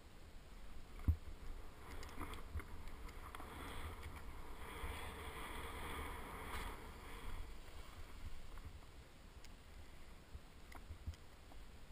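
A rider sliding downhill through soft powder snow: a rushing hiss that swells through the middle and eases off near the end, with one sharp knock about a second in.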